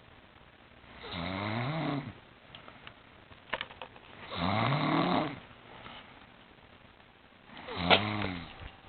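Snoring: three long snores about three seconds apart, each rising and then falling in pitch. The last snore is the loudest, with a sharp catch at its peak.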